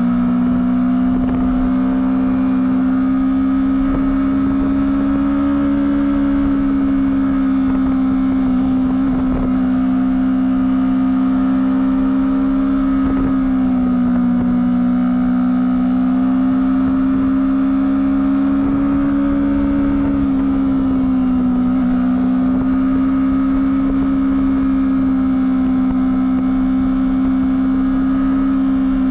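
Honda CBR250RR engine through its stock exhaust, running steadily at high revs under way, the pitch holding with slight rises and falls and dipping briefly twice, around the middle and again later.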